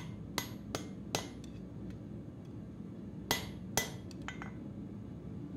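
Hand hammer striking red-hot steel on an anvil while riveting the poll of an axe: three sharp blows in the first second or so, then two more after a pause of about two seconds, with lighter ringing taps between and after them.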